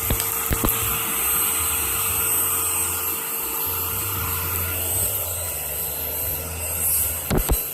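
Household vacuum cleaner running steadily, a constant rushing noise with a steady hum and a high whine. A few short knocks sound just after the start and again near the end.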